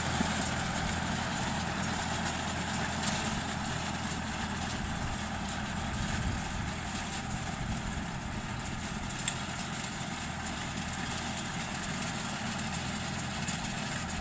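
Tractor engine running steadily, with a couple of faint clicks.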